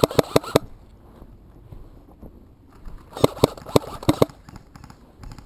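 Airsoft gun firing quick single shots: a rapid string of four sharp cracks at the start, then five more over about a second from around three seconds in.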